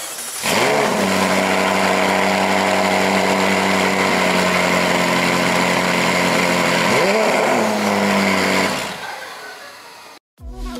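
McLaren 570S Spider's 3.8-litre twin-turbocharged V8 starting up with a quick flare of revs, then idling steadily. About seven seconds in a short blip of revs rises and falls, and the engine sound fades out about nine seconds in.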